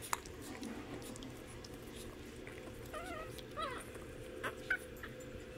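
Shih Tzu puppies whimpering: two short, wavering high whines about three seconds in, with a few light clicks around them.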